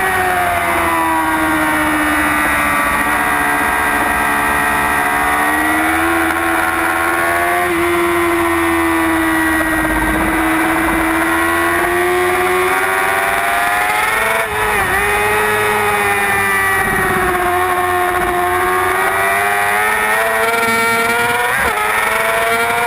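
Heavyweight-class racing superbike engine running hard at high revs, its pitch sinking and climbing with throttle and gear changes, with brief breaks at the shifts, about two-thirds in and near the end. Wind rushes over the bike-mounted microphone.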